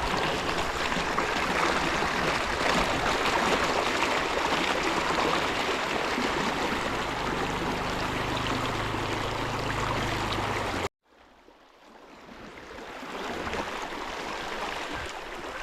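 Water rushing steadily over a small waterfall in a swollen stream. The rush breaks off abruptly about eleven seconds in, and fainter running water then swells back up.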